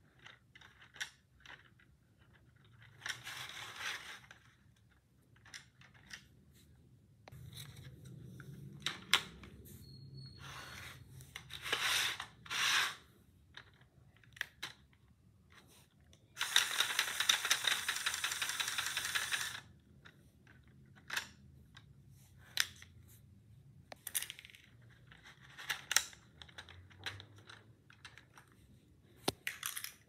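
Plastic LEGO pieces clicking and rattling as the model is handled and adjusted: scattered sharp clicks throughout, with a continuous clattering stretch of about three seconds just past the middle.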